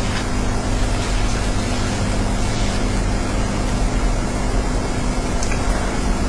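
Hushed snooker-arena room tone on a broadcast feed: an even hiss with a steady low hum and no distinct event.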